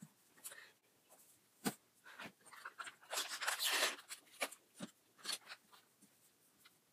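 Crinkling and rustling of crumpled packaging wrapper being handled, densest about three seconds in, with scattered light clicks and taps.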